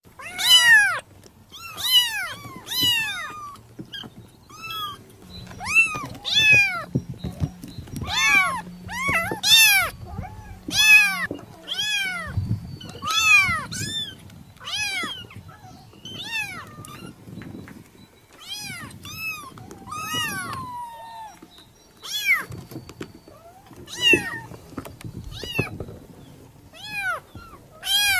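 Kitten meowing over and over: high-pitched calls that rise then fall in pitch, roughly one a second with short pauses between.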